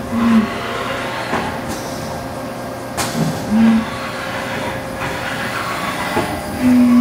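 Haas SL-20 CNC lathe running a program: a steady machine hum, with short pitched whines near the start, midway and near the end as the axes move, and a single sharp clunk about three seconds in.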